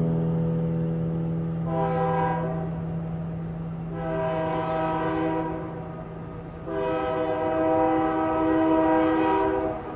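Three long blasts of a multi-tone horn, each a steady chord of several pitches, the third the longest. A low steady hum fades out under the first two.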